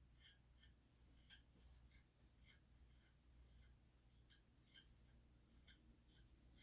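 Very faint comb strokes through a Schnauzer puppy's coat, about two or three short strokes a second.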